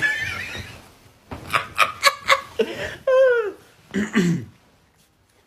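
A person laughing: a quick run of about four short laughs about a second and a half in, then a voice gliding downward in pitch about three seconds in, and a short vocal sound a second later.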